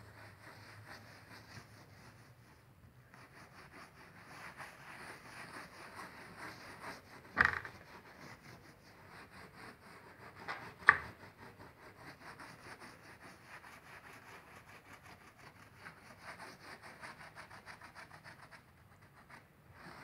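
Damp sponge rubbing back and forth over a freshly grouted glass mosaic, a fast repeating swishing as grout haze is wiped off the glass. Two short sharp knocks, about seven and eleven seconds in, are the loudest sounds.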